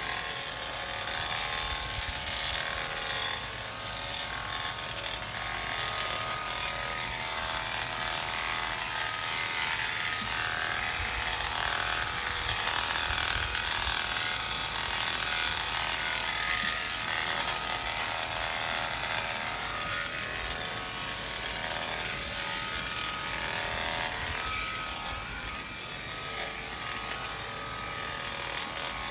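Premier One electric sheep-shearing clippers running steadily as they cut through a ram's fleece.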